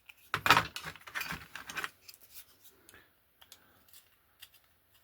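Drill bit and small model wagon-kit parts being worked by hand: a few scraping, rasping strokes in the first two seconds, then scattered light clicks and taps.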